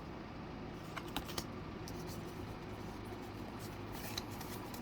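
Faint clicks and rustles of a Pokémon card booster pack and its cards being handled, a few clicks about a second in and another near the end, over a steady low hum.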